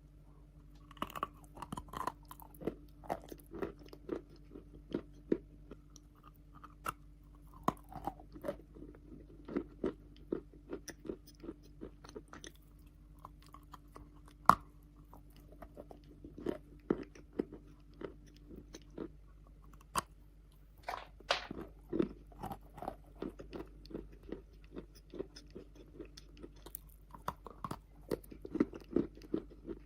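Wet chalk being bitten and chewed: soft, irregular crunches, several a second, with a few louder bites scattered through.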